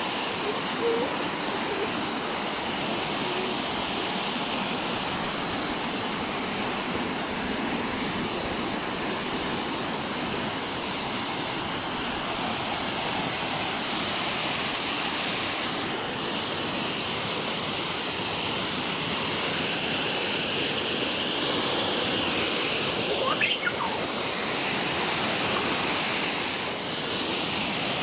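Steady, even rush of tumbling water. About three-quarters of the way through, a brief high rising sound cuts through it.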